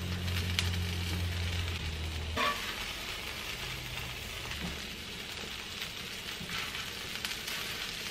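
Cheese-filled tortillas sizzling and frying in oil on a cast-iron stovetop griddle, a steady crackling hiss. There is a short scrape about two and a half seconds in.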